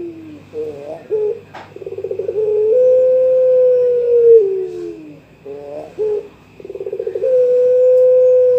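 Young pelung-type Barbary dove (puter) cooing twice: each call opens with a quick stuttering run of notes, then a long held coo that slides down at the end. A single sharp click about a second and a half in, and a faint steady high tone behind.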